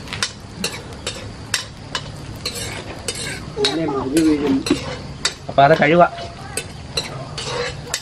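Garlic, ginger, green chillies and fresh curry leaves frying in hot oil in a pan, stirred with a spoon: a steady sizzle with frequent clicks and scrapes of the spoon on the pan. A voice is heard briefly twice around the middle.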